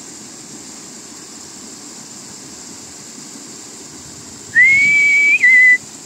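A single loud whistled note, about a second long, sliding up at the start and then held, with a short break and a slightly lower pitch near the end. It comes over a steady background hiss.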